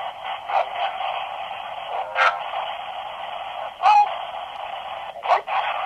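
S Box spirit box sweeping through radio stations: a steady, thin static hiss broken by four brief snatches of sound from passing stations.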